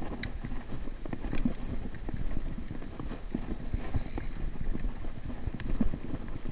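Mountain bike rolling over a rocky dirt trail: irregular knocks and rattles from the tyres and bike bouncing over stones, over a steady low rumble of rolling.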